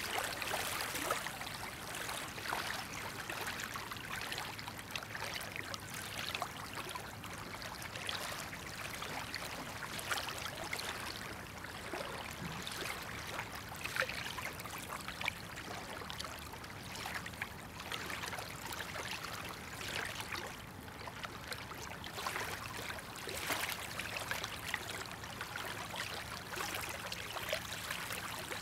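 Small waves lapping and trickling at the edge of a muddy tidal river shore, a steady patter of little splashes.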